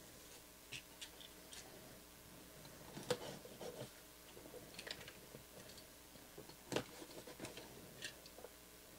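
A sealed cardboard trading-card box is handled and its seal worked open. Scattered faint scratches, clicks and taps, with two sharper knocks about three and seven seconds in.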